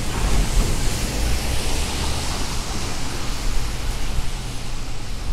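Rainy city street ambience: a steady hiss of rain and tyres on wet asphalt over a low traffic rumble. The hiss swells for a couple of seconds about a second in.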